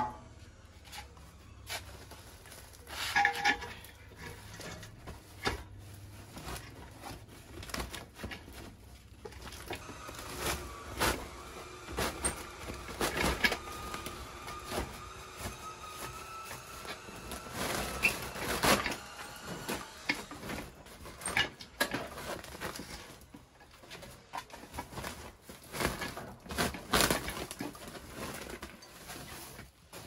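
Handling noise from old rusty fans being uncovered and moved: a woven plastic sack crackles and rustles as it is pulled off, with irregular knocks and clanks from the wire fan guards and stands.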